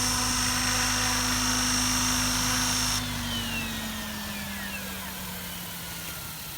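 Mikado Logo 690 electric RC helicopter's 12-cell brushless motor and rotor running with a steady high whine; about three seconds in the whine cuts off and the motor and rotor wind down, the pitch falling slowly as the power is shut off.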